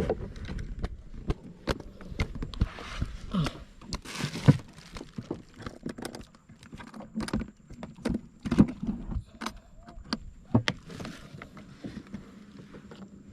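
Irregular knocks, clicks and jangling rattles from a freshly caught snapper being handled in a small boat, with the lure and tackle clattering.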